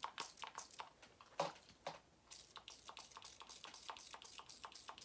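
Light clicks and taps of makeup products and containers being picked up and moved about, a scatter of small knocks.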